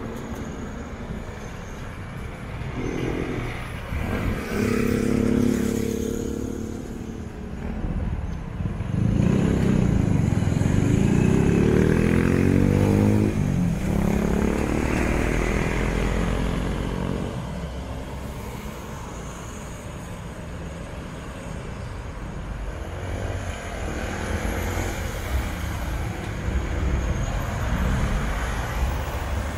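Diesel city bus engines running in a bus terminal, with a low rumble throughout. From about nine seconds in, a bus pulls away, loudest for several seconds as its engine pitch rises and falls through the gears, then fades.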